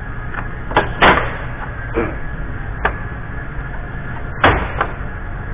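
Scattered knocks and clicks of hands handling the plastic grille and front-bumper trim of a Chevy Silverado pickup, about six in all, the loudest about a second in and near the end, over a steady hum.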